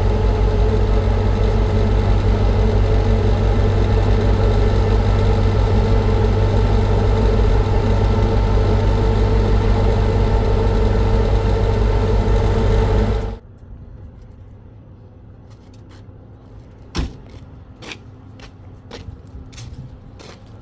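Vehicle engine running steadily, heard with a strong low hum, stopping abruptly about thirteen seconds in. After that come a few sharp clicks and a knock.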